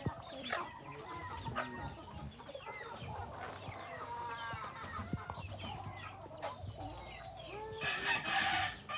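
A flock of domestic chickens clucking and calling as they are fed, with a louder, harsher call near the end.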